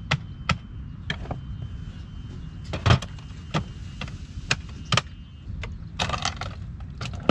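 Stackable plastic toolboxes being set on one another and latched together: a string of sharp plastic clicks and knocks, the loudest about three seconds in and a quick cluster near the end.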